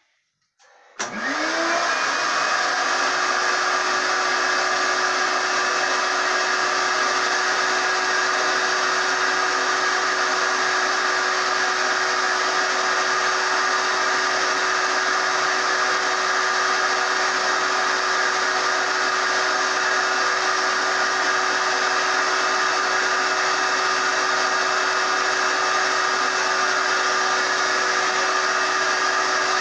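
Craftsman 12-gallon, 6-horsepower wet/dry shop vacuum switched on about a second in, its motor whine rising quickly to speed, then running steadily with a loud rush of air through the hose and brush attachment.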